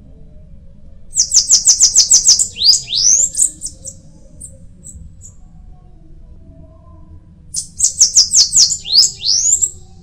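Bananaquit (sibite) singing twice, about a second in and again near the end: each song is a fast run of very high, sharp notes ending in a few rising slurred notes.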